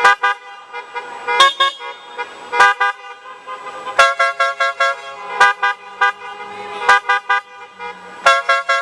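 Car horns honked in clusters of short rapid toots, repeating about every second and a half.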